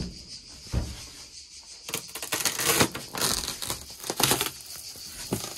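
Old, dry, glued-down linoleum being torn and broken up off a van floor. There is a knock about a second in, then a run of cracking and tearing in the middle.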